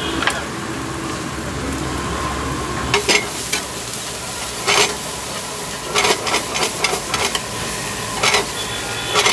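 Food sizzling as it is stir-fried in oil in a black frying pan over a gas flame, with a metal spatula stirring and scraping. From about three seconds in come sharp clinks of the spatula against the pan, in short clusters.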